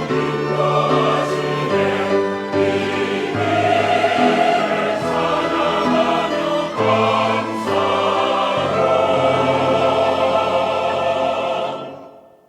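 Church choir singing a hymn anthem in held chords that change every second or two. The sound fades out near the end.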